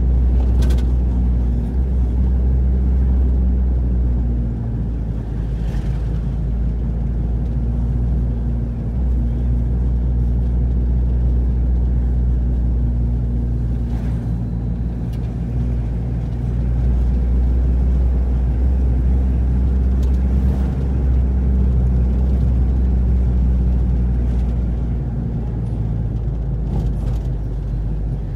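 Car engine and road noise heard from inside the cabin while driving: a steady low drone that eases off and picks up again a few times.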